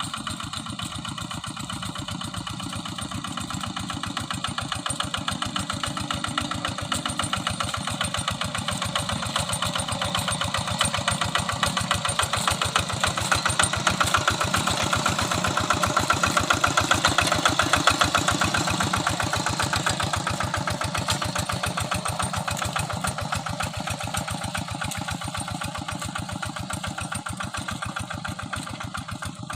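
Single-cylinder diesel engine of a Quick Impala hand tractor running steadily with rapid, even firing pulses. It grows louder toward the middle and fades again near the end.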